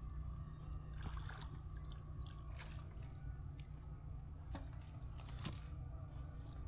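Faint handling and water sounds as a hooked channel catfish is worked toward a landing net: a few sharp clicks and knocks over a steady low rumble.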